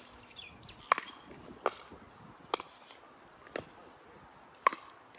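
Pickleball paddles striking a plastic pickleball in a rally at the net: a string of sharp pocks about a second apart, the loudest near the end.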